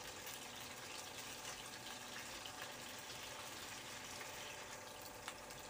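Pieces of fish frying in shallow oil in a non-stick pan: a faint, steady sizzle with fine crackling, and one small click near the end.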